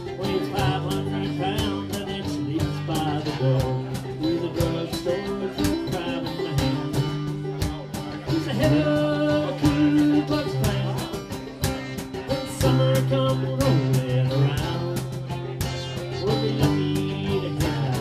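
A live blues band plays an instrumental break between sung verses: guitars, among them a cigar box guitar, strummed and picked in a steady driving rhythm.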